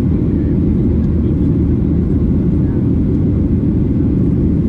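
Boeing 737-800 engines and cabin noise heard from inside the passenger cabin: a steady, unbroken low roar with nothing standing out.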